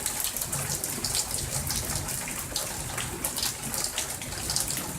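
Heavy rain pouring down, a steady hiss of water with many small splashes and drips.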